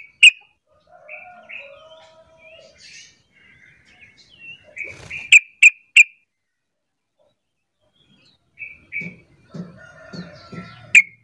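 Yellow-vented bulbul calling: soft chattering notes broken by sharp, loud chips, three in quick succession about five seconds in.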